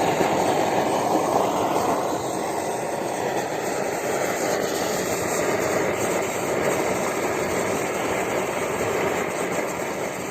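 BRS-8 pressurised liquid-fuel camping stove burning at full output, a steady rushing roar from the burner mixed with strong wind gusting over the microphone. The roar eases off slightly near the end.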